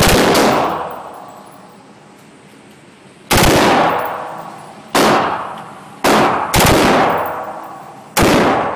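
M4 carbine (5.56 mm) firing six short bursts, each with a long echoing decay off the walls of the indoor range.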